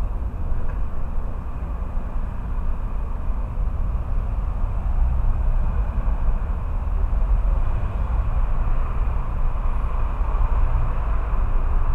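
Steady low rumble of wind on the microphone mixed with outdoor traffic noise, growing slightly louder about halfway through.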